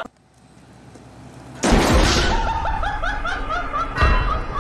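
A sudden loud crash-like noise, then a person laughing in quick 'ha-ha-ha' pulses, about four or five a second; a second low thump comes near the end.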